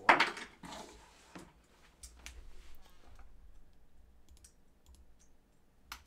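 Clicks and taps of hardware being handled on a desk: a loud knock right at the start, then a string of light clicks for about three seconds, thinning to a few faint ticks.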